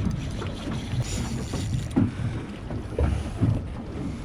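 Small fishing skiff on open water: wind rumbling on the microphone and water slapping at the hull, with a few low knocks and a short hiss about a second in.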